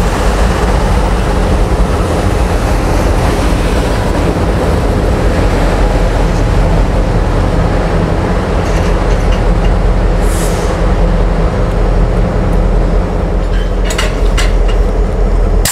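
Norfolk Southern diesel locomotive idling close by, a steady low engine drone. The rushing noise of a passing NJ Transit multilevel commuter train runs through the first half and then fades. A few sharp clicks come near the end.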